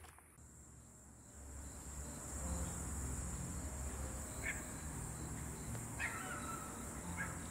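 Outdoor campsite ambience: a steady high insect drone over a low rumble, with a few short bird chirps about halfway through and near the end.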